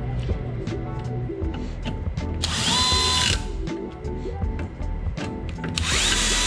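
Cordless drill/driver run in two short bursts of about a second each, driving screws, its motor whine rising and then holding steady. Background music plays throughout.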